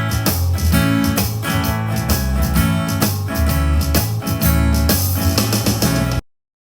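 Instrumental outro of a pop song cover, band music with guitar, cutting off suddenly about six seconds in.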